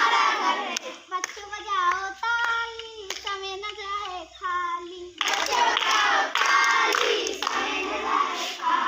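Children's action rhyme sung in call and response with hand claps: one voice sings a line alone with sharp claps, then a group of children sing the answer together, loud and in unison, about five seconds in.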